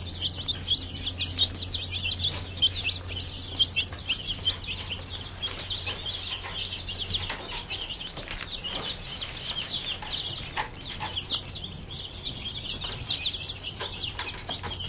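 A dense chorus of baby broiler chicks peeping, many short high calls overlapping, with scattered light taps. A low steady hum underneath stops about halfway through.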